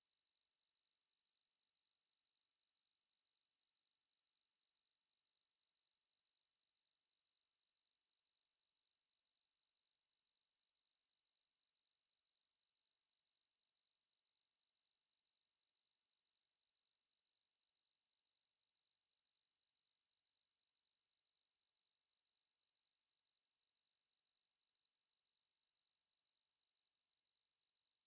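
A steady, unbroken 4456 Hz sine-wave test tone: one pure, high-pitched whistle-like note held at a constant level.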